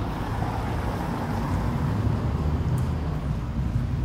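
A small car driving past on a cobblestone street, its engine and tyres making a steady low rumble.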